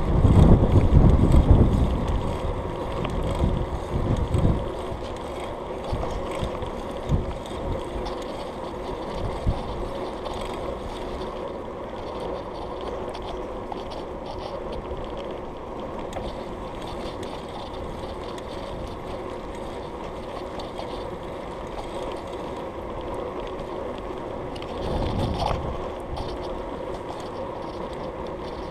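Bicycle rolling along a tarmac path, a steady hum of tyres and drivetrain. Wind buffets the microphone hard for the first few seconds and again briefly a few seconds before the end.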